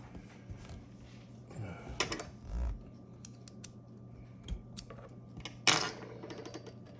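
Small metal gun parts clicking and clinking as the hammer and hammer pin of a Geissele AR-15 lower parts kit are worked in the lower receiver, with two louder short clattering scrapes, about two seconds in and near six seconds.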